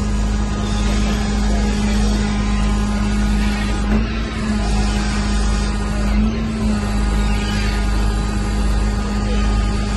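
Fishing boat's engine machinery running with a steady low drone and a constant hum that wavers slightly twice.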